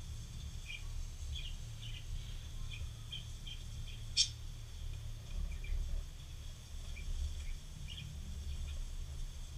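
Black felt-tip marker squeaking in short, irregular strokes on paper as the lines are inked, with one sharp tick a little over four seconds in, over a steady low rumble.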